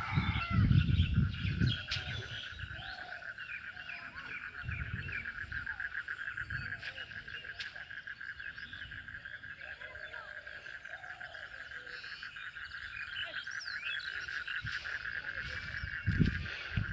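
Frogs calling in a steady chorus, a fast pulsing trill that runs on without a break, with small bird chirps over it. Low rumbling on the microphone in the first couple of seconds and again near the end.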